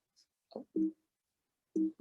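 Short, low beep-like tones, each a fraction of a second long, about once a second, with faint clicks between them.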